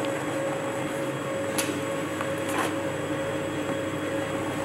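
Checkweigher conveyor belt motors running with a steady hum, with a couple of faint ticks.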